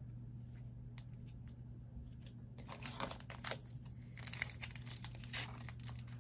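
Foil Pokémon booster pack wrapper crinkling and tearing in quick crackles as it is opened by hand, starting about two and a half seconds in.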